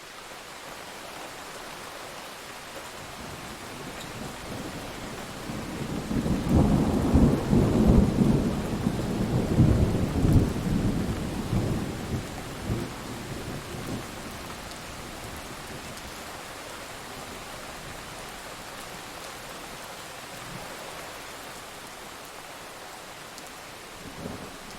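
Thunderstorm with steady rain: a long roll of thunder builds about six seconds in, crackles and rumbles loudly for several seconds, then fades back under the rain hiss; another low rumble begins near the end.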